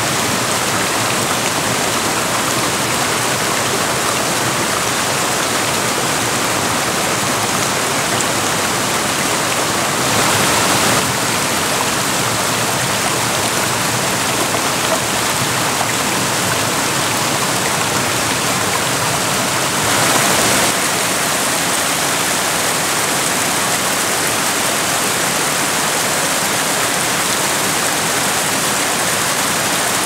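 Mountain creek water rushing and cascading over boulders in a steady, full rush, briefly a little louder twice, about ten and twenty seconds in.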